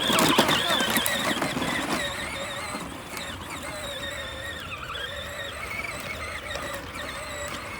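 Ride-on toy tractor driving off, its electric motor and gears whining with a wavering pitch. It is louder and rougher for the first two seconds, then settles to a steadier whine.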